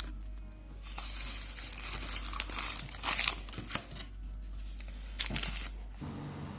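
Product packaging crinkling and rustling with irregular crackles as it is handled and unwrapped by hand.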